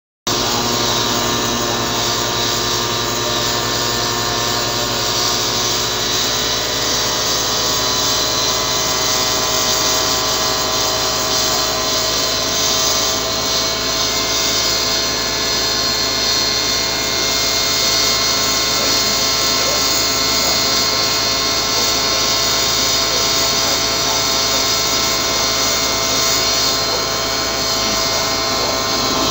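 Homemade tin-can jet engine running steadily: a loud, even rushing hiss with several steady whining tones in it, like an overdriven hairdryer.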